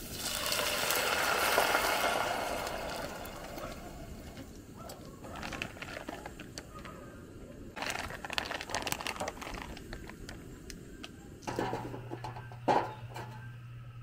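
Camp cooking: a loud hissing burst in the first two seconds that fades, then light rustling and soft clicks as fresh udon noodles are handled and dropped into a pot of soy-milk broth. Near the end a steady low hum comes in, with a couple of sharp knocks.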